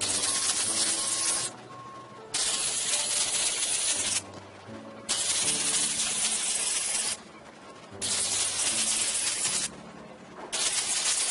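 Spray wand hissing as acrylic hurricane roof sealer is sprayed up under asphalt shingles. It comes in five bursts of about two seconds each, with short pauses between.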